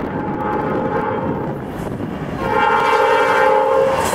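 Norfolk Southern diesel freight locomotive's air horn sounding two long blasts, the second louder as the locomotive draws near, over the noise of the approaching train.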